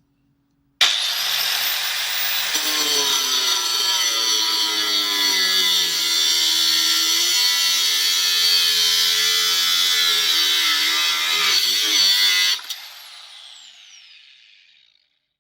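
An angle grinder starts about a second in, its motor whine rising as it spins up, then runs steadily with the pitch wavering as it is worked. Near the end it is switched off and the whine falls away as the disc spins down.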